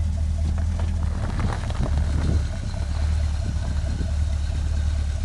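Off-road vehicle's engine running with a steady low rumble while crawling over rocks, with scattered knocks and crunches, thickest about a second or two in.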